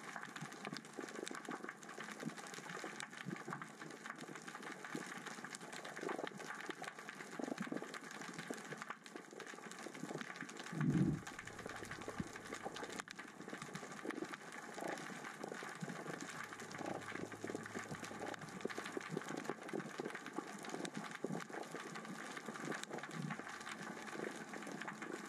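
Underwater ambience: a steady, dense clicking and crackling of small rocks rolling across the sea floor in the current and tide, with one dull low thump about eleven seconds in.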